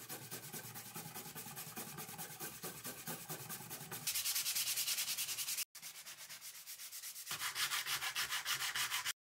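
A wooden knife handle slab being sanded by hand on a sheet of sandpaper: quick back-and-forth rubbing strokes, about four a second. The strokes grow louder about four seconds in, pause briefly, then grow louder again near the end before stopping abruptly.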